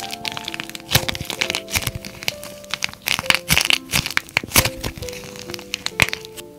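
The dried green crust of a plaster clay disc cracking and crackling into flakes as hands squeeze and knead the soft white clay beneath it, with many quick sharp cracks. Soft piano background music plays under it.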